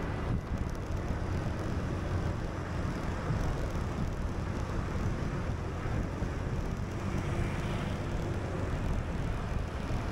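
Steady city road traffic noise with wind rumbling on the microphone.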